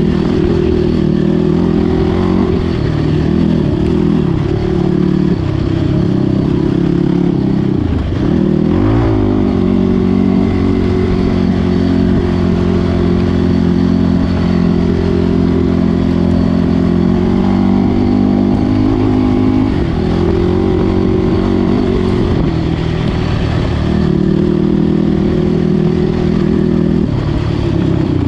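ATV engine running under way, its pitch rising and falling as the throttle is worked, with a quick rev up and back down about nine seconds in.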